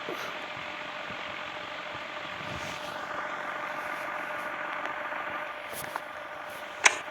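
Ceiling fan running steadily: a constant motor hum with the rush of moving air. There is a small click about six seconds in and a sharp, louder click just before the end.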